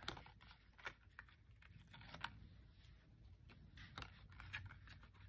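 Faint handling noise: scattered small, irregular clicks and light rustles of fingers picking at and peeling the backing film off adhesive tape on paper card.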